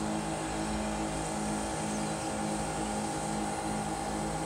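Laminating machine's vacuum pump running with a steady hum and a low tone that pulses about twice a second.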